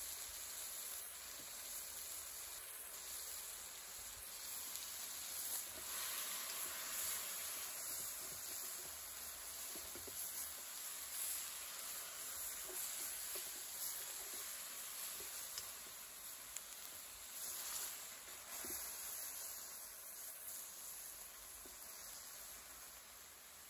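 Chicken pieces sizzling in oil in an enamelled steel pan, a steady frying hiss with occasional light clicks as a spatula stirs them.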